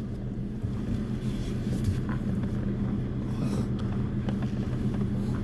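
Car engine running at low speed while parking, a steady even hum heard from inside the car.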